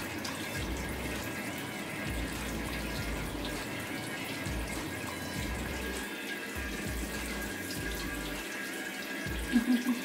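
Water falling steadily as a shower from a pump-fed tube arch into a plastic tub of water, a constant patter and splash.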